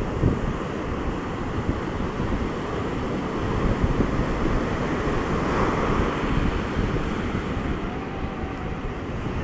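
Ocean surf breaking and washing up a sandy beach, with wind buffeting the microphone as a ragged low rumble. A wash surges in a little louder about halfway through.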